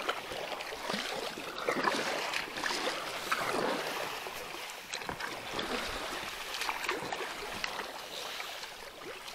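Kayak paddle strokes: irregular splashes and drips over a steady wash of water lapping against an inflatable PVC kayak's hull as it is paddled.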